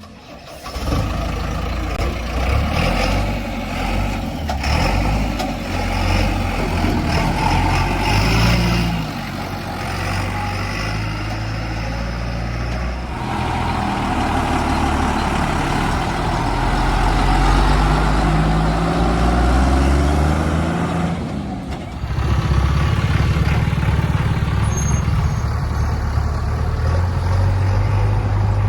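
Diesel engine of a JCB 3DX backhoe loader working under hydraulic load while loading mud, its pitch rising and falling as it revs. The sound changes abruptly at about 13 and 22 seconds.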